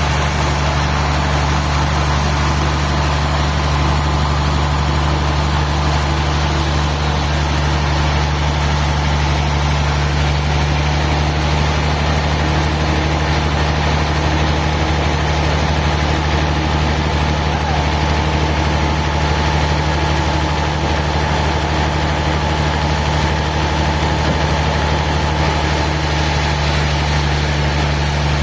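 A large engine running steadily at constant speed, with a low, even hum that does not change.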